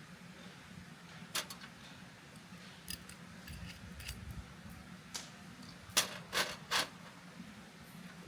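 Scattered light clicks and clinks of metal cooking utensils against a griddle pan, with three sharper clicks in quick succession about six seconds in.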